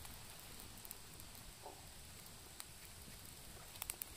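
Quiet outdoor background hiss with a few faint, sharp clicks: a single one past the middle and a quick cluster near the end.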